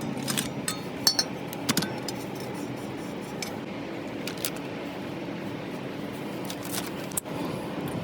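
Light metallic clinks and taps of small parts and hand tools being handled during disassembly: several close together in the first two seconds, then a few scattered ones, over a steady low background hum.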